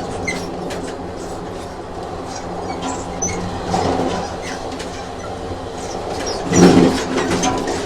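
Train sound effect: a train running on rails with a steady rumble, the clatter of wheels over rail joints and brief high wheel squeaks. Louder clatters come twice, about four and seven seconds in.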